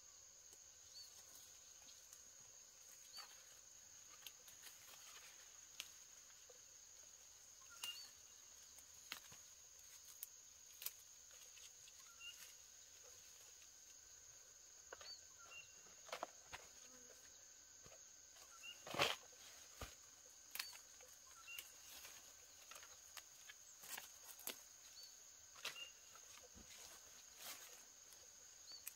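Quiet field ambience: a steady high insect drone with scattered short chirps. Over it come brief snaps and rustles of leafy plants being picked by hand, the loudest about nineteen seconds in.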